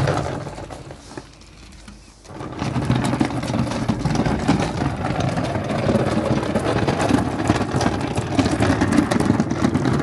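Toy Henry vacuum cleaner's small motor running with a steady whir. It drops away for about a second near the start, then runs on steadily.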